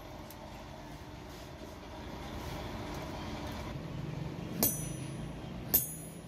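Steady low rumble, then two sharp ringing metal strikes about a second apart near the end: a hammer hitting a handled steel punch held on a hot leaf-spring axe blank on the anvil.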